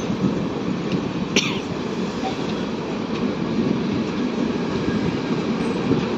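Steady rumble and rattle of passenger train wheels running on rails as a train of red LHB coaches runs alongside, heard from the open door of a moving train. A brief high screech comes about a second and a half in.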